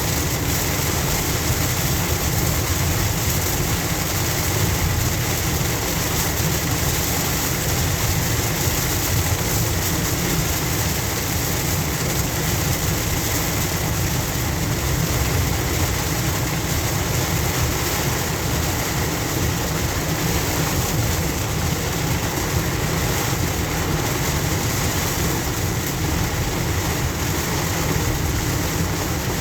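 Car driving through heavy rain, heard from inside the cabin: a steady wash of rain on the car and tyres on the flooded road.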